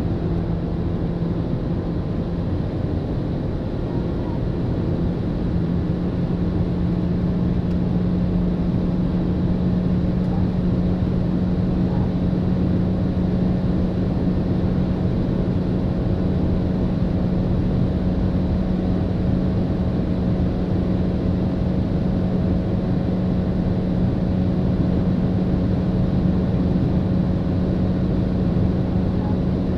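In-cabin sound of a 2022 Renault Arkana TCe 140 accelerating near its top speed of about 200 km/h: the 1.3-litre turbocharged four-cylinder engine drones at a steady pitch over heavy wind and tyre noise. The drone rises slightly in pitch during the first few seconds, then holds.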